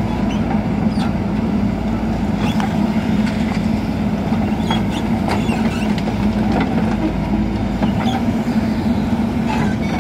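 JCB backhoe loader's diesel engine running steadily as the arm digs and swings, with scattered sharp knocks and clatters of brick rubble being scooped and dropped into a tractor trolley.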